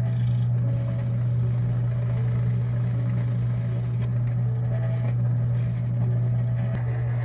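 Drill press motor running with a steady low hum while a twist bit bores into a wooden block. The hum starts abruptly and cuts off sharply near the end.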